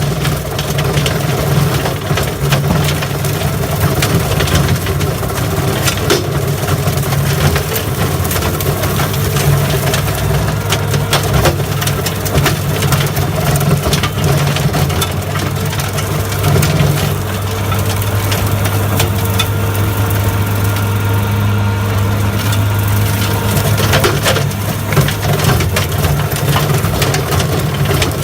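New Holland L170 skid steer's diesel engine running under load while its 5 ft Loflin brush cutter mows through thick brush, with a constant crackle of snapping stems and wood. The engine note drops a little about seventeen seconds in.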